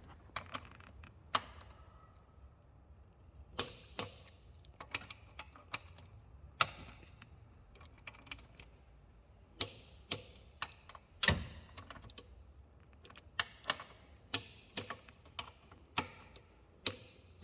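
Ratchet torque wrench clicking in short irregular runs as the new throttle body's bolts are tightened to 24 newton-metres.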